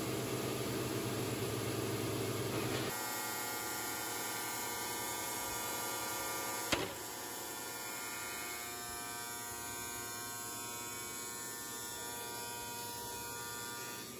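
Electric motors of a three-blade CNC ceramic tile cutting machine running with a steady hum and whine as a wet slab feeds under the cutting heads. The sound changes abruptly about three seconds in, and there is a single sharp click just before the middle.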